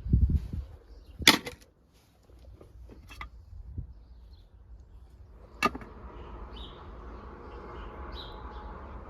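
Work handling sounds: a low thud at the start, a sharp knock about a second in and another a little past five seconds, then steady rubbing.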